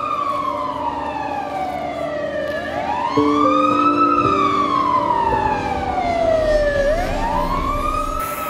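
Fire engine siren sounding a wail, its pitch rising and then falling slowly about every four seconds. A short chord of steady lower tones joins about three seconds in.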